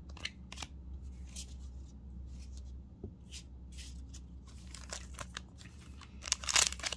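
Foil booster-pack wrapper being handled and torn open: scattered light rustles and clicks, then loud crinkling and tearing starting about six seconds in.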